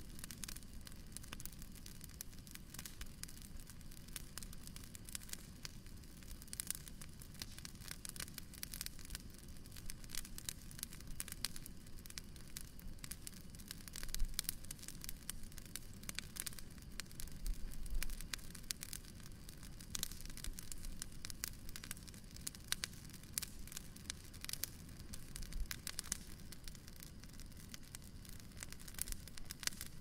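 Wood bonfire crackling and popping: dense, irregular snaps over a steady low hiss of burning.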